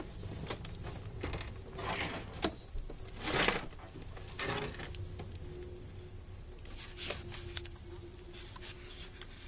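Electrical cable being handled and fed through to a ceiling fan box: a few soft, scattered rustles and scuffs, with a faint steady hum in the second half.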